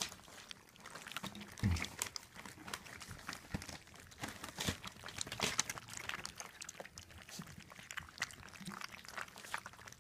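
Several Rottweiler–Australian Shepherd mix puppies lapping and licking at a shallow metal pan: a busy, irregular run of small clicks and ticks, with one louder low bump a little under two seconds in.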